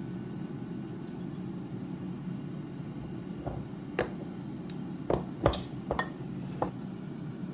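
Tableware clinking: about six light knocks and clinks in the second half, the loudest just past the middle, over a steady low background hum.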